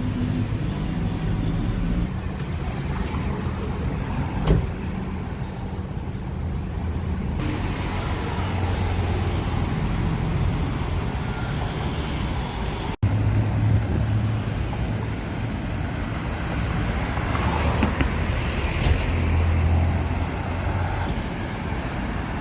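Road traffic with vehicle engines running steadily. There is a sharp click about four and a half seconds in, and the sound drops out for an instant about 13 seconds in.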